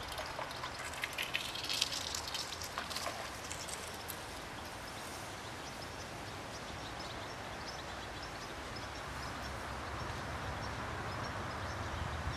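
Outdoor riverside ambience: a flurry of rapid, high ticking in the first four seconds or so, then a steady hiss over a low rumble.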